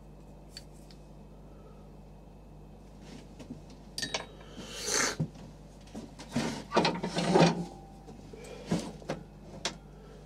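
Workshop handling noises beside a stopped wood lathe: a few knocks and scrapes of tools being moved and set down, starting about four seconds in, over a faint steady hum.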